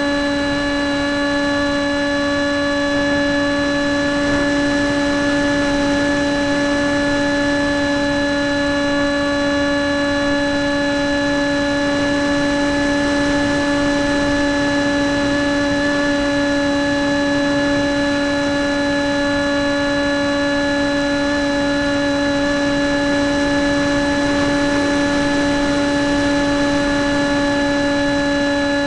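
Radio-controlled model jet's motor and propeller running at a steady pitch during flight, recorded from a camera on the airframe, with rushing wind noise.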